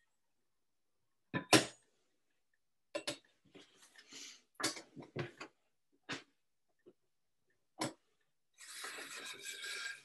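Communion vessels and items handled on a wooden desk: a sharp knock about a second and a half in, then a series of clicks and taps, and near the end a stretch of rustling, like papers being handled.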